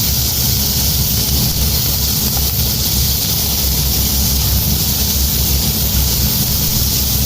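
Onion sizzling in hot oil in a frying pan, a steady hiss over a low continuous hum.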